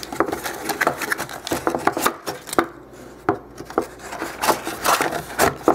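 Hands handling an emptied cardboard phone box: folding and pressing its flaps and inner insert, with irregular taps, scrapes and rubbing of card.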